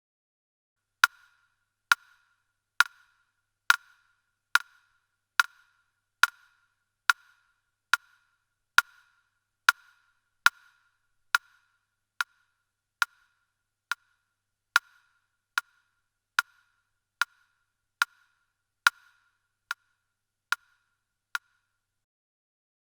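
Clock ticking: crisp single ticks a little faster than one a second, each with a brief ring. They run steadily and stop shortly before the end.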